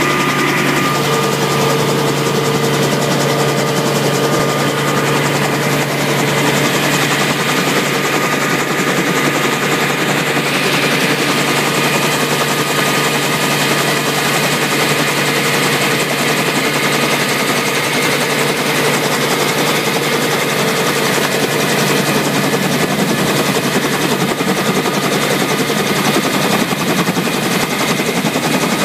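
Helicopter engine and rotor running steadily on the ground: a loud, unbroken drone with a rapid chop.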